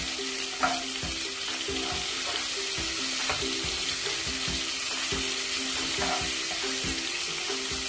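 Chopped garlic sizzling in a few tablespoons of hot oil in a nonstick pot, with the scrape and tap of a spatula stirring it.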